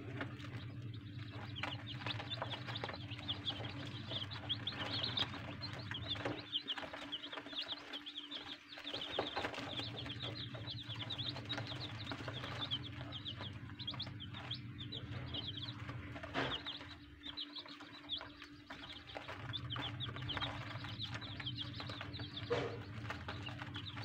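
A brood of young chicks peeping continuously, many rapid high chirps overlapping.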